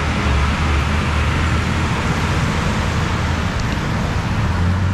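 Steady hiss of heavy monsoon rain and traffic on a flooded road, with a low, steady engine rumble underneath.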